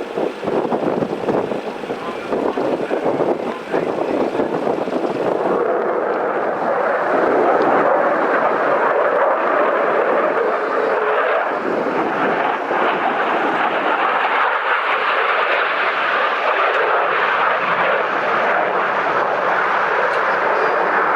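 Aircraft engine noise, a steady rushing sound that grows louder about six seconds in and stays loud.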